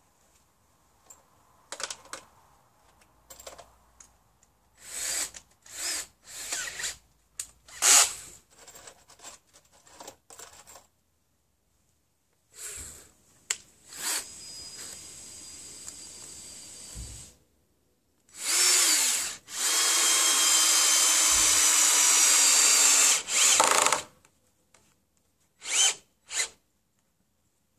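Cordless drill-driver working into wooden roof battens: scattered clicks and short trigger bursts, then a brief run followed by a steady run of about three and a half seconds at an even pitch, and two short blips near the end.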